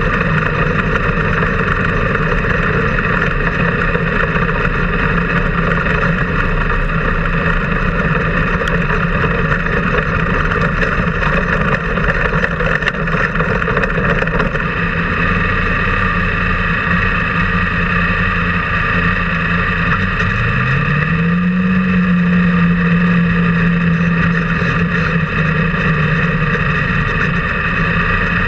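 360 sprint car's 360-cubic-inch V8 running steadily, heard from the cockpit, its pitch rising about three-quarters of the way through and then holding higher.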